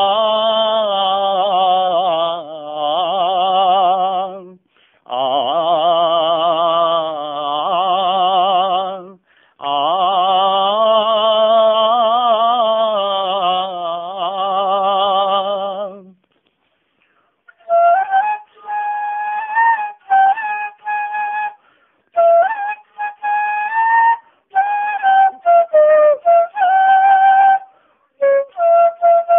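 A man's voice sings a long wordless "aa" with heavy vibrato in three held phrases. After a short break about 16 seconds in, a flute plays a melody of short, separate notes.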